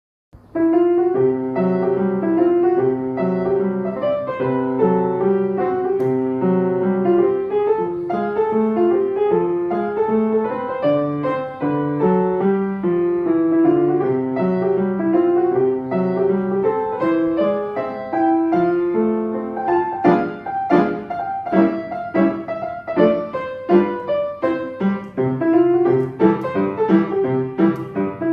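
Solo piano piece: a melody over a repeating bass line begins about half a second in, and from around two-thirds of the way through it changes to short, detached notes and chords.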